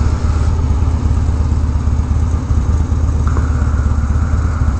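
Harley-Davidson Dyna's Twin Cam V-twin, with a Bassani Road Rage 3 exhaust, running steadily under way with a deep, even exhaust note.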